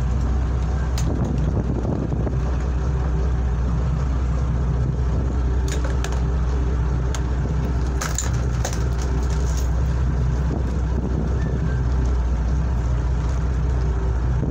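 A boat's engine running with a steady low hum, under wind and water noise, with a few sharp clicks and knocks scattered through.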